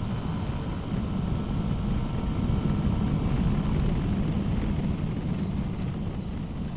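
Wind rushing over the camera microphone, mixed with the steady drone of a Yamaha NMAX 155 scooter's engine at cruising speed. The noise swells slightly midway and eases off near the end.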